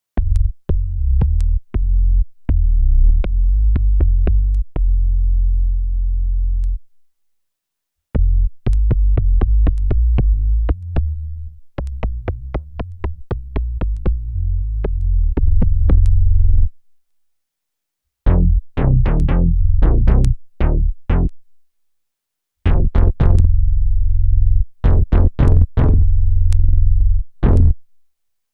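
Electric bass played through an Electro-Harmonix Bass Mono Synth pedal, recorded direct: synth-bass riffs with sharp note attacks, in four phrases separated by brief silences. The last two phrases have a brighter, more cutting tone than the first two.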